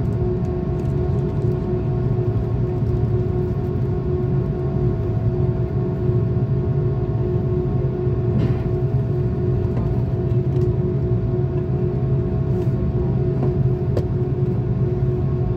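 Airbus A330 heard from inside the cabin on the ground: a steady low rumble of engines and cabin air with a constant hum tone over it, at an even level throughout.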